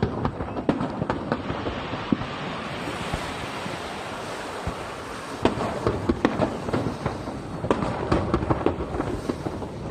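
Aerial fireworks bursting and crackling: a dense hissing crackle in the first half, then clusters of sharp pops and crackles from about halfway.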